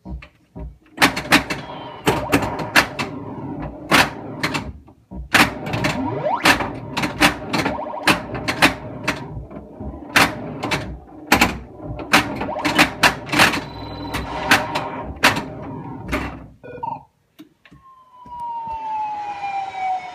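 1982 Bally Space Invaders pinball machine in play: rapid, irregular mechanical clacks of the ball, flippers and solenoids over the machine's steady electronic sound effects. The clacking stops about 17 s in, and near the end a single long falling electronic tone sounds.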